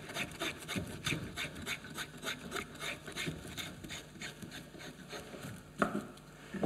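Spokeshave shaving a wooden spatula handle in quick repeated strokes, about three a second, each a short rasping cut. One sharper knock comes near the end.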